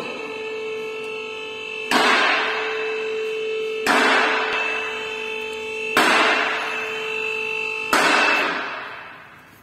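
Background music: a held chord with a sharp, crash-like hit every two seconds, each ringing away, fading out near the end.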